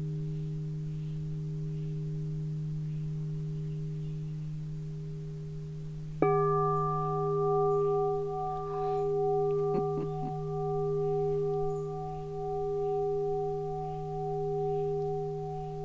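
A crystal alchemy singing bowl ringing with a steady low hum; about six seconds in it is struck with a mallet, adding a brighter set of higher ringing tones that sustain, swelling and fading in slow waves.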